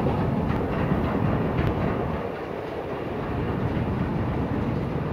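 Steady mechanical rumble of a long station escalator running, heard while riding on it, with a few faint clicks.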